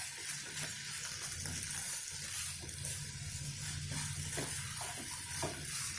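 Thick brinjal and coriander poriyal sizzling in a kadai over the gas flame while a spatula stirs and scrapes it around the pan: a steady hiss with faint, irregular stirring strokes.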